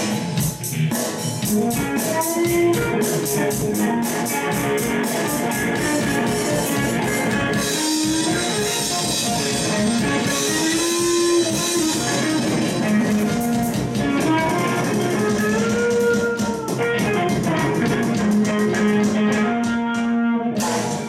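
Funky blues jam of guitar over a steady drum beat, the guitar lines sliding and bending in pitch.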